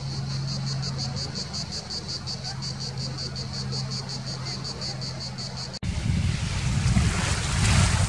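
A steady low hum with a fast, even ticking above it, about six ticks a second, cuts off abruptly just before six seconds in. Sea waves breaking on a beach follow, with a louder surge near the end.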